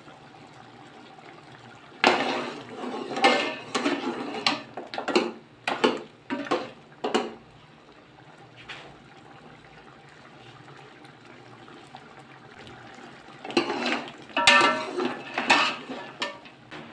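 Metal ladle stirring a metal pot of mutton paya broth, clanking and scraping against the pot with the liquid sloshing. The clatter comes in two spells, one from about two seconds in and another near the end.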